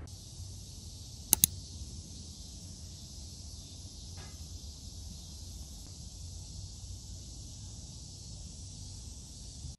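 Steady high-pitched insect chorus over a low rumble, with two sharp clicks in quick succession about a second and a half in.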